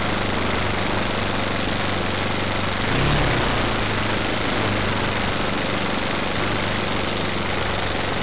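Model aircraft glow engine, an OS 95V, idling steadily close to the onboard camera, with a short swell in the engine note about three seconds in.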